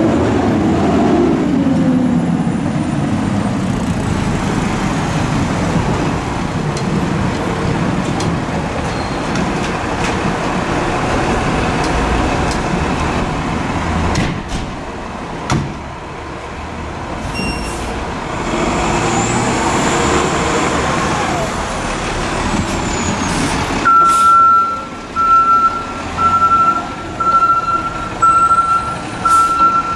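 Fire engine (a 2012 Spartan Metro Star) running, first as it pulls away and then as it idles and reverses. Near the end its backup alarm beeps steadily about once a second, the loudest sound here.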